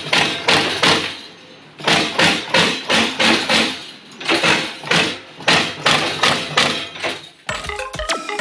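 Terminal crimping press striking again and again, about three strokes a second in runs with short pauses, as pins are crimped one after another onto the wires of a multi-wire connector harness. Music comes in near the end.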